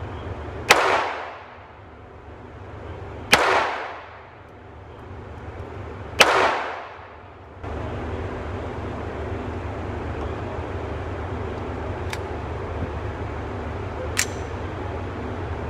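Three pistol shots about three seconds apart, each followed by a short echoing decay. About halfway through, the sound cuts abruptly to a steady low rumble with a couple of faint clicks.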